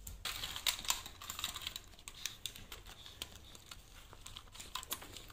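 Small dog chewing and tearing at a plastic toy and shredded paper, a run of quick crackling clicks, densest in the first couple of seconds and thinning out after.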